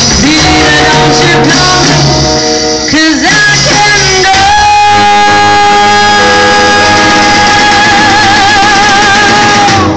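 Live swing band with female singer, saxophones, drums and upright bass playing loudly toward the close of a song. About four seconds in, the singer settles on one long held high note over a sustained band chord, the note wavering with vibrato in its last couple of seconds, and everything cuts off together just before the end.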